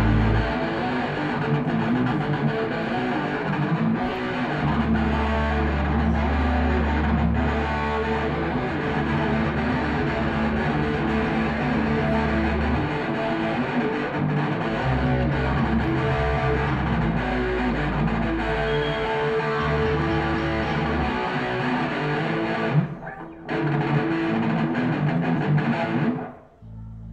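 Live punk rock band playing loud, with distorted electric guitar, bass guitar and drums. The music breaks off briefly about three-quarters through, then stops just before the end.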